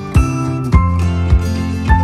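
Music with sustained notes over a steady beat, a little under two beats a second.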